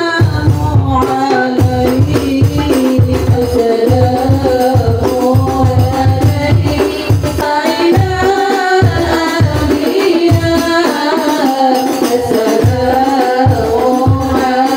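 Women's hadroh ensemble singing an Islamic devotional song together over frame drums (rebana) and a bass drum keeping a steady beat, with the singing carried through a sound system.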